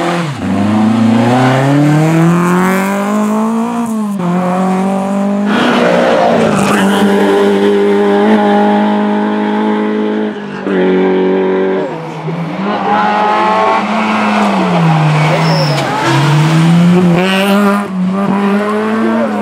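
Rally cars' engines revving hard as they accelerate out of tight mountain corners, several cars in turn. The pitch climbs with each pull and drops at every gear change.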